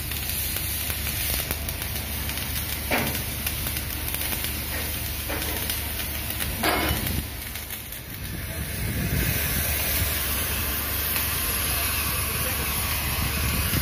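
Electric arc welding overhead on a steel ship's hull plate: the arc sizzling steadily over a low steady hum, with a couple of short sharp pops and a brief dip about eight seconds in.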